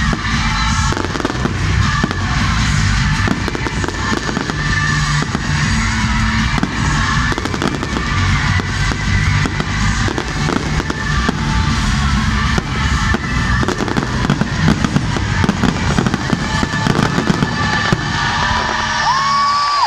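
A dense barrage of aerial firework shells bursting in rapid, overlapping bangs, the busy pace of a show finale, with loud music playing underneath.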